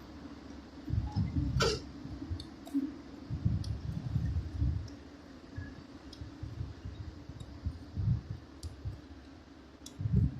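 Electric-motor concrete mixer pump running: a steady hum, with irregular low thumps and occasional sharp clicks over it.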